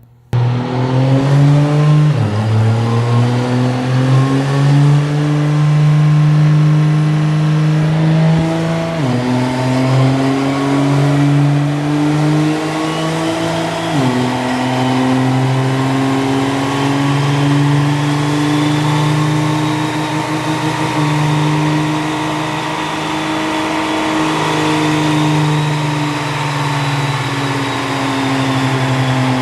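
High-horsepower diesel truck engine running hard under load on a chassis dyno. Its pitch climbs slowly and drops sharply three times, about 2, 9 and 14 seconds in, then holds fairly steady with a slow rise and fall.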